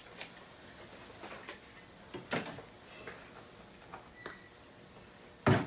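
Light clicks and rustles of a mini Likit treat's plastic cup and wrapper being handled and opened, with one loud knock near the end.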